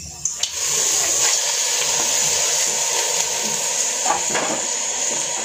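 Raw pork pieces tipped into hot oil in a cooking pot, starting to sizzle suddenly about half a second in and frying steadily. A couple of light knocks come near four seconds in.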